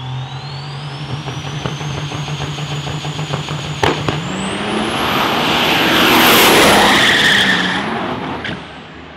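Turbocharged diesel drag truck: a high turbo whine climbs steadily over a steady engine note, then a sharp crack about four seconds in. After that the engine note rises and the truck grows louder as it accelerates down the strip, loudest about two to three seconds later, and the sound drops off suddenly near the end.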